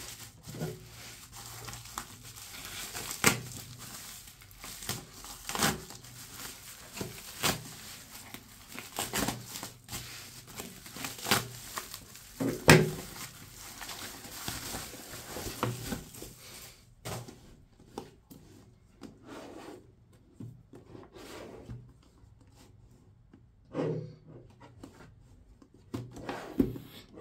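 Plastic bubble mailer crinkling and being torn open by hand, a dense crackle broken by sharp snaps. About two-thirds of the way in it goes quieter as the cardboard box is slid out and handled, with a few soft knocks near the end.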